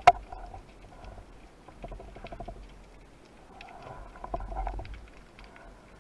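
Underwater ambience picked up through a waterproof camera housing: scattered sharp clicks and crackles over a faint low rumble, with a quick run of clicks about two seconds in.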